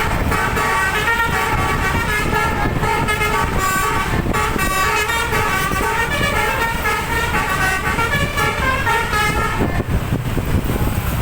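Bus telolet basuri horn, a set of twelve air-horn trumpets, playing a fast koplo-style melody of stepping notes, stopping about ten seconds in. Engine and road rumble run underneath.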